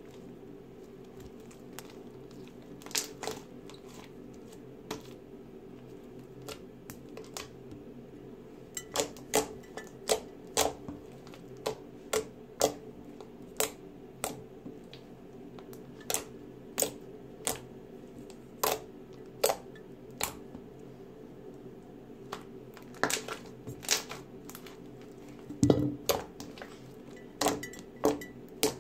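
Glittery slime being pressed and poked, giving sharp irregular pops and clicks over a steady low hum.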